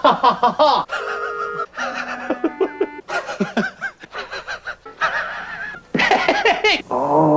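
A man's wheezing laugh in quick repeated gasps, coming in several bouts. A few short steady tones sound between the bouts, about one to three seconds in.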